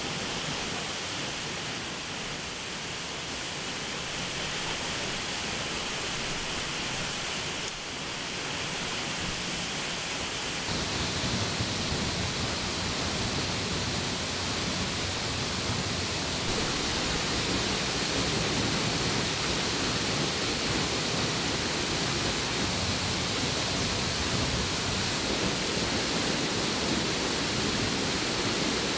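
Steady rushing of a waterfall, becoming louder and deeper about ten seconds in.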